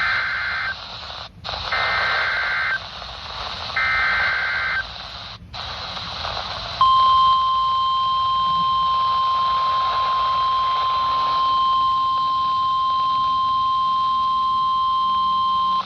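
NOAA Weather Radio receiver sounding an Emergency Alert System activation over radio hiss: three short bursts of screeching SAME digital header tones about two seconds apart, then, about seven seconds in, the steady 1050 Hz weather radio alert tone held for about nine seconds. This marks the start of a new severe thunderstorm warning broadcast.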